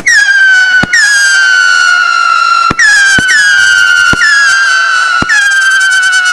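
Classic scream-whistle firework battery firing shot after shot. About six sharp bangs, each followed by a loud screaming whistle that starts a little higher and settles to a steady pitch, the whistles overlapping.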